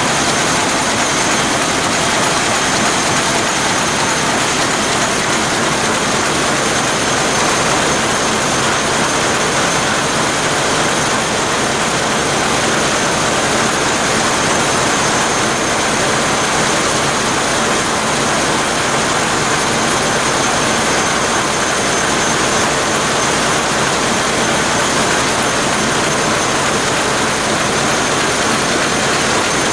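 Burmeister & Wain seven-cylinder two-stroke marine diesel engine running at steady speed, heard close to its valve gear: a loud, even mechanical din with a thin high whine over it.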